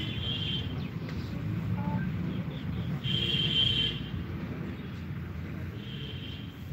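Outdoor background noise: a steady low rumble, with a high shrill tone sounding three times, briefly at the start, loudest for about a second in the middle, and briefly near the end.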